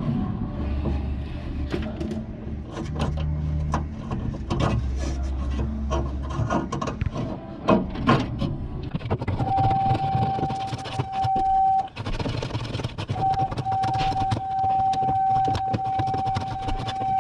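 Clicks and knocks of metal parts being handled and worked in a car door's window-lift mechanism. From about halfway a steady whine with hiss sets in, breaks off briefly, and runs on.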